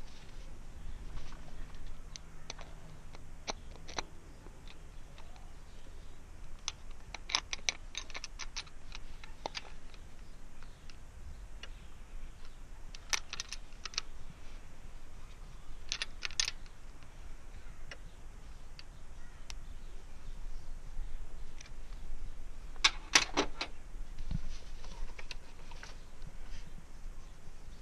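Small metallic clicks and taps of hand tools on the rocker arms and adjusting screws of a Honda Civic's exposed valvetrain during a valve adjustment, some single and some in quick runs, the loudest run about 23 seconds in.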